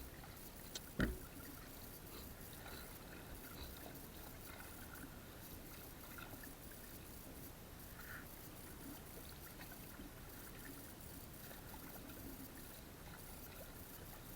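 Faint steady water sound, with a single sharp knock about a second in.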